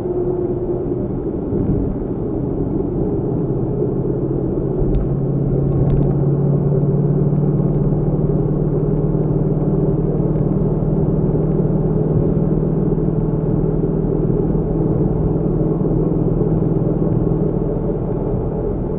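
Car engine running with a steady low rumble, heard from inside the vehicle; the engine note rises slightly about five seconds in. Two faint clicks come about five and six seconds in.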